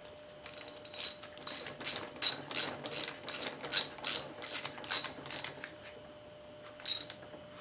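Hand ratchet wrench clicking as bolts are run down on a small engine's side cover: a quick run of clicks, about four to five a second, for about five seconds, then a single click near the end.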